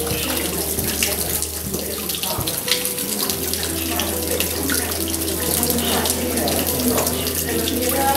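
Steady running water, splashing into a koi pond.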